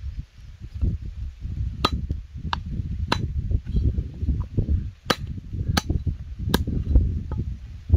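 A series of about six sharp knocks, unevenly spaced, over a low, uneven rumble, typical of a knife or cleaver chopping on a block.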